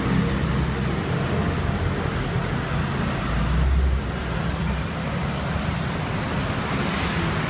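Steady street traffic noise with a low rumble, swelling briefly about halfway through.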